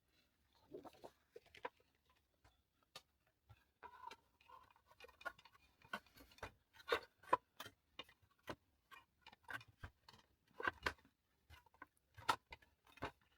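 Package being handled and opened: irregular faint clicks, taps and short rustles of packaging, a few louder ones about halfway through and again near the end.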